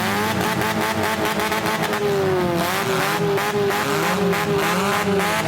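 Compact-car engines revving hard in a demolition derby, their pitch climbing and falling several times, with scattered short clatter throughout.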